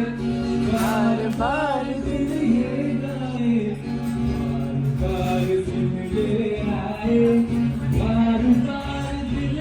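Music with a singing voice over steady held low notes.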